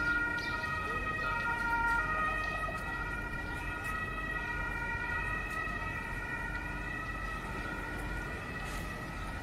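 Tatra KT4 tram running along the street with a steady high whine of several held tones, over a low rumble.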